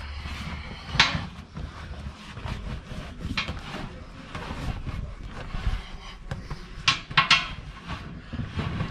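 Short knocks and scrapes of hands and a tool working inside a tractor rear tyre against its steel rim. The sharpest knock comes about a second in and a quick cluster comes near the end, over a steady low background hum.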